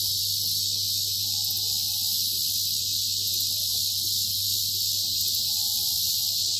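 A steady, high-pitched chorus of insects droning without a break, with a low hum underneath.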